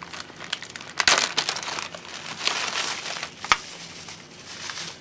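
Plastic bubble wrap crinkling and rustling as hands unwrap a power supply, with sharp clicks about a second in and again about three and a half seconds in.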